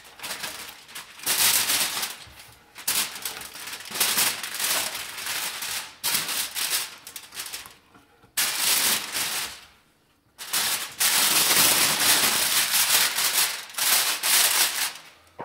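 Aluminium foil crinkling and rustling in a string of bursts as handfuls of raw onion rings are scooped off a wooden cutting board into a foil pouch, with the longest stretch of crinkling in the last third.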